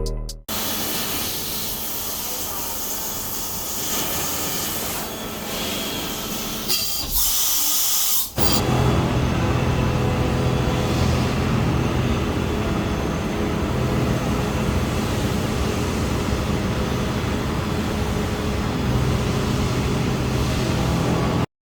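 Steady running noise of shop machinery, a rushing hiss over a low hum. The sound changes abruptly a couple of times, as at edits between shots, and cuts off suddenly near the end.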